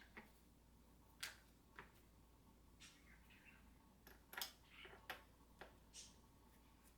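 Faint, irregular clicks and scrapes of a hand screwdriver driving a screw into a chair part, the loudest about a second in and again just past the middle.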